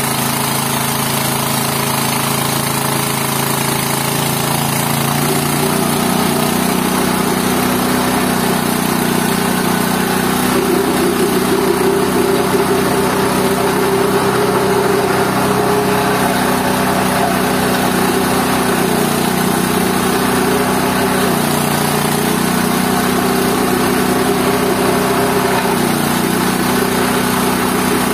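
GT-14 organic-waste pulverizer running steadily while grinding vegetable waste, its machine note shifting in pitch a few times as the load changes.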